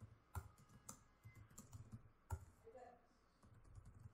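Faint typing on a computer keyboard: quick, uneven key clicks, with a few stronger strokes.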